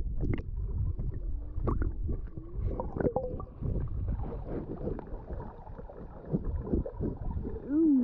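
Swimming-pool water heard through a submerged action camera: a muffled, low rumbling and gurgling of water stirred by swimmers, with a short rising-and-falling muffled tone near the end.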